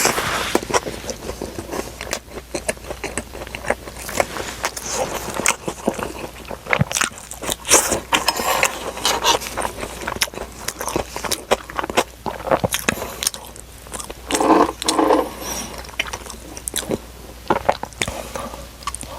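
Close-up eating sounds: biting and chewing fast food, with crunchy crackles and wet mouth clicks in an irregular run. A short hummed sound comes about three-quarters of the way through.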